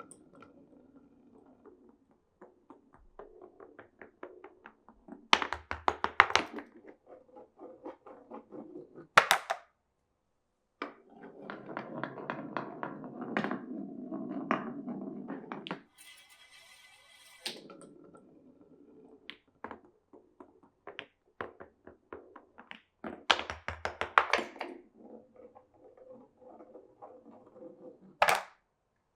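Glass marbles rolling and clattering down a wooden marble run of Cuboro-style blocks and wooden rails, with sharp clacks at the drops and a steadier rolling run midway. A brief high ringing tone sounds about two-thirds of the way in.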